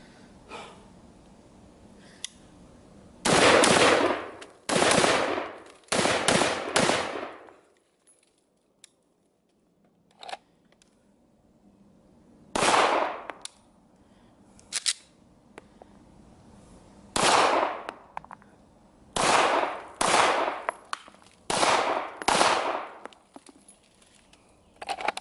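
Gunshots fired one at a time in short strings, each trailing off in a long echo: a quick string of about four a few seconds in, then single shots, then four more in quicker succession near the end. The later shots are from a Shadow Systems MR920 9 mm pistol.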